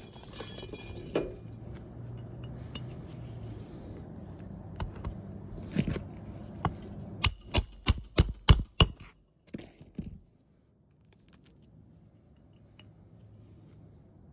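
Metal hammer striking a roofing nail: scattered clinks and knocks, then a quick run of about eight ringing strikes about halfway through, over a steady low hum.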